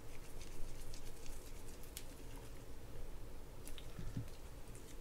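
Faint, scattered small clicks and scrapes of a mini screwdriver turning the screw that holds the crosswind gear inside a Penn Battle III 6000 spinning reel, with gloved hands handling the reel's metal and plastic parts.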